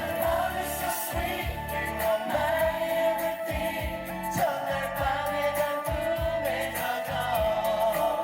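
Live band playing a pop ballad with a steady kick-drum beat while many voices sing the melody together, the crowd singing along.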